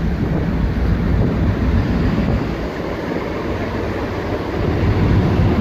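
Wind buffeting the microphone and the rush of the bow wave along the hull of a patrol boat under way, over a steady deep rumble.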